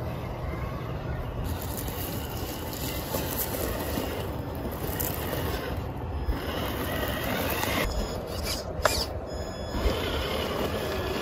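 Traxxas TRX-4 Defender RC crawler's electric motor and geared drivetrain whining as it crawls, with its tyres crunching and scraping over rocks and pine needles. A single sharp click about nine seconds in.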